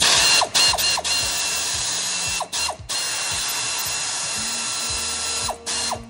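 A power tool running with a steady high whine, in several runs separated by brief pauses, stopping near the end.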